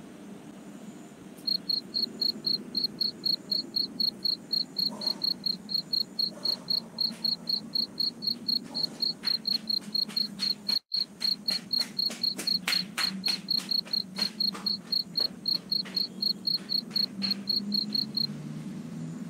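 A cricket chirping in a fast, even rhythm of about four to five high chirps a second, starting a second and a half in and stopping shortly before the end. Irregular clicks through the middle, over a low hum.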